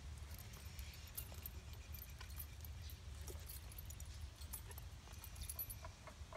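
Faint metallic jingling of a horse's bridle and lead chain as the horse mouths the bit and shifts its head, over a steady low rumble.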